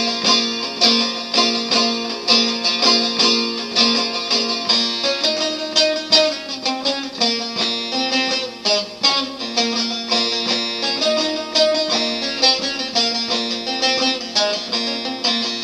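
Instrumental music: a plucked string instrument picking a quick, busy melody over held lower notes.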